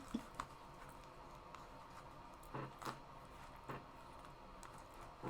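Quiet room with a few soft clicks and smacks of people eating, the clearest pair about three seconds in.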